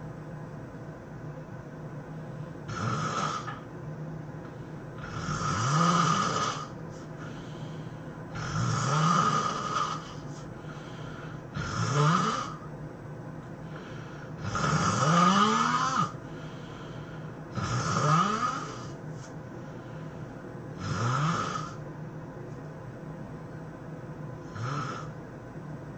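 A sleeping person snoring in a steady rhythm, about one snore every three seconds, eight in all. Each snore rises in pitch, and the last one is fainter.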